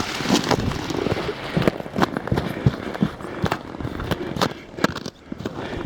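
Irregular sharp cracks and crunches of ice and frozen snow underfoot, several a second with some louder snaps, as from boots on a frozen creek.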